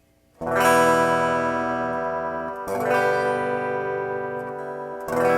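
Acoustic guitar strummed three times, each chord left to ring: the E minor and G chord shapes being played in turn.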